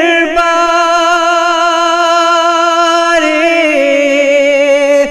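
Naat singing: a single voice holds one long drawn-out note with a slight waver, shifting down in pitch around three to four seconds in.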